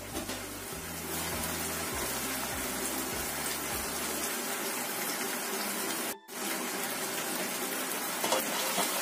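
Chicken in tomato sauce boiling in a frying pan, a steady bubbling hiss as the sauce reduces and thickens. The sound cuts out for a moment about six seconds in, and a few clicks come near the end as a spatula goes into the pan.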